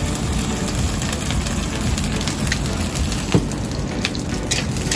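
Shrimp, egg and cornstarch batter frying in hot oil in a stainless steel pan: a steady sizzle with crackles and pops that come more often near the end. One sharp knock a little after three seconds.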